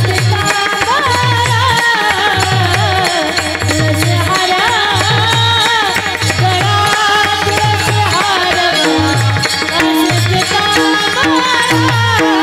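Marathi kirtan music: singing over a steady pakhawaj rhythm, with taal hand cymbals clashing on the beat and harmonium. The deep pakhawaj strokes repeat in a regular pattern throughout.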